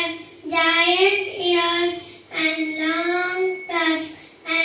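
A young girl singing into a microphone: one high child's voice holding steady notes in phrases of about a second, with short breaks between them.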